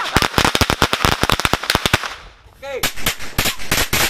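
A ring of small red stick firecrackers going off in rapid succession: a fast string of sharp bangs and cracks. It breaks off briefly about two seconds in, then starts again.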